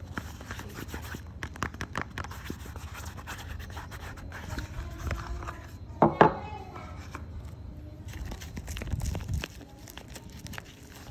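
Hands handling and working soap bars, close up: a steady run of scratching, rubbing and small clicks, with two sharp knocks about six seconds in.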